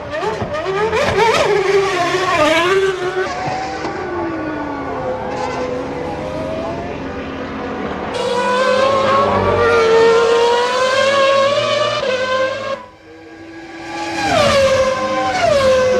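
1998 Formula One cars' V10 engines at racing speed, the pitch climbing and falling with throttle and gear changes. The sound drops away briefly about thirteen seconds in, then an engine rises again and steps down through several downshifts near the end.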